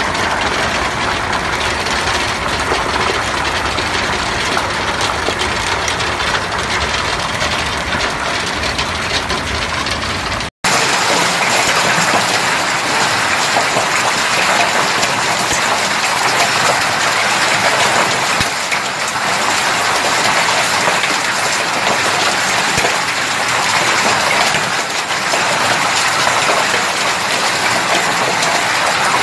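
Hailstorm: a dense, steady clatter of hailstones falling on ground and plants, with a deep rumble underneath. About ten seconds in it breaks off for an instant and gives way to a brighter, hissing patter of hail and rain striking a porch and wooden deck.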